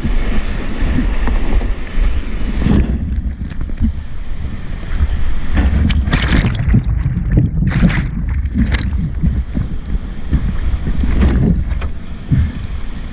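Whitewater rushing and splashing around a kayak running a steep rapid, heard close up through a helmet camera's housing with a low rumble from wind and water on the microphone. About three seconds in the sound turns muffled, broken by several sharp splashes as the boat goes down the drop.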